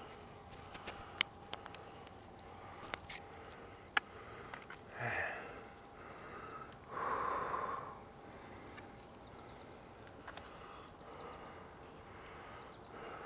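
Quiet woodland ambience with a steady high-pitched insect drone, a few sharp clicks, and two short breathy, sniff-like noises about five and seven seconds in.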